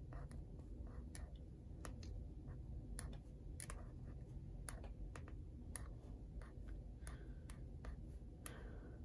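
Pen writing on planner paper: faint, light, irregular ticks as the tip meets the page.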